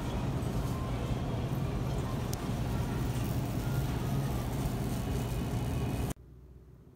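Steady low hum with a dense wash of background noise, the ambience of a busy indoor space around a bin of beets, cutting off abruptly about six seconds in to quiet room tone.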